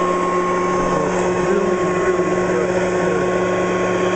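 Kirby Classic 1-CR upright vacuum cleaner running steadily: a constant motor and fan hum with a steady higher whine.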